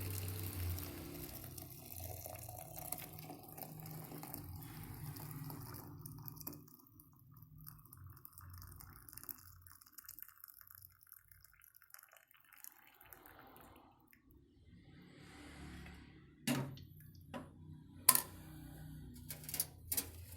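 Hot ginger water being poured from a pot into a larger container, a steady pour lasting about six seconds. Near the end come a few sharp knocks, the loudest about two seconds before the end.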